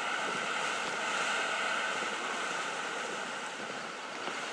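Steam vents (fumaroles) jetting steam with a steady hiss.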